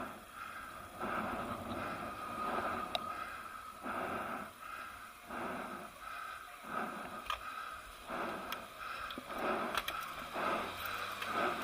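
A cyclist's heavy breathing while riding, noisy breaths coming about once a second, over a faint steady whine.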